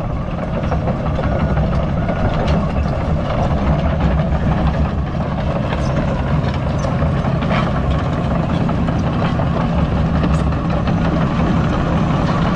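Excavator's diesel engine running steadily while it digs, with a few faint clanks.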